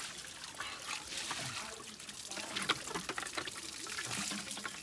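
Water poured from a plastic bucket, splashing and trickling over a pig carcass and onto a concrete slab, with small scattered splashes.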